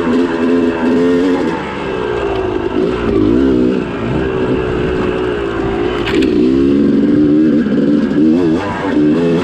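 Yamaha YZ250 two-stroke dirt bike engine being ridden, its pitch rising and falling with the throttle. A short sharp knock about six seconds in.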